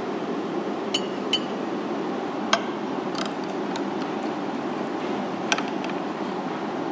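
A metal spoon clinking against a ceramic plate about five times, short sharp taps spread across several seconds, over a steady low rush of background noise.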